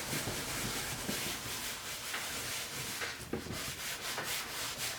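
Hand rubbing conditioner into the dry, stiff vinyl upholstery of a vintage Recaro seat: a steady scratchy rubbing made of many short strokes, a little crunchy from the dried-out material.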